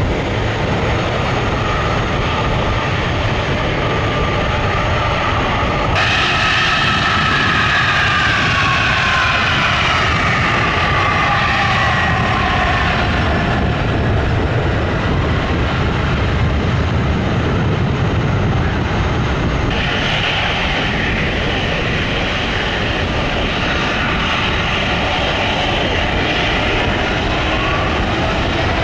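Boeing 767-300 jet airliner taking off: a loud, steady jet roar with engine whines that slide down in pitch as it passes. A different jet's roar is heard before an abrupt change about six seconds in.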